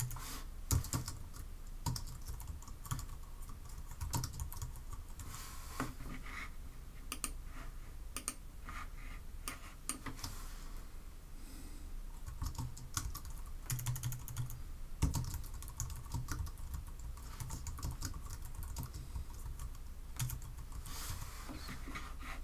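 Typing on a computer keyboard: irregular keystrokes in runs, with a short pause about halfway through.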